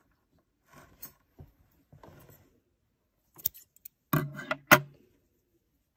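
Faint rustling of crochet yarn being handled, then scissors snipping the yarn a few times between about three and a half and five seconds in, the last snip the loudest.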